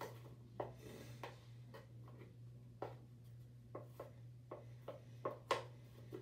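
A utensil stirring and scraping a sticky flour-and-water paste in a plastic cup: soft, irregular taps and scrapes, over a faint steady low hum.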